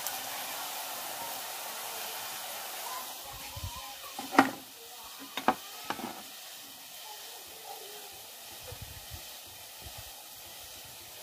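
Onions and spices sizzling in hot oil in a metal pan, a steady hiss that eases after about three seconds. Three sharp knocks fall between about four and six seconds in, the first the loudest.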